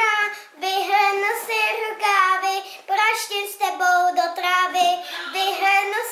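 A young boy singing aloud, unaccompanied, in phrases of held notes with short breaks between lines. He is singing along to music only he can hear through headphones.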